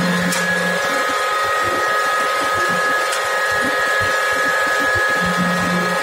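Sawdust grinding machine running steadily: a continuous mechanical whir with a steady high whine on top and uneven low knocking underneath.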